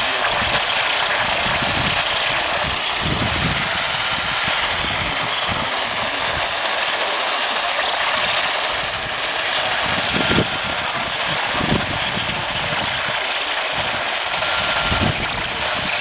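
Static from an AM radio tuned to a distant station: a steady hiss with no programme audible, broken by a few low thumps about ten, twelve and fifteen seconds in.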